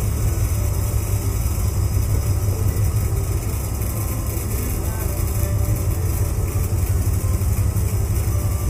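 Steady low engine rumble with a hiss over it, the sportfishing boat's engines running at low speed.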